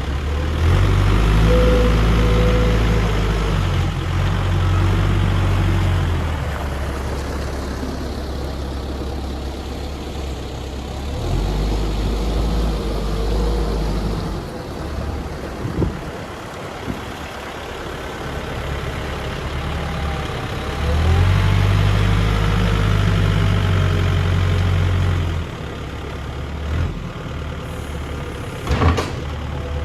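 Volvo BL71 backhoe loader's diesel engine running, with its revs rising in three spells and dropping back to idle between them. A couple of sharp knocks come in the middle and near the end.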